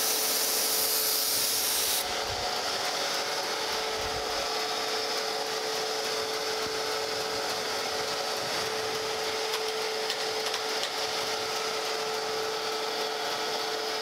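Surface grinder running with a steady hum, its wheel making spark-out passes over a straight edge. The grinding hiss cuts off sharply about two seconds in, leaving a lighter, steady rubbing noise from the wheel.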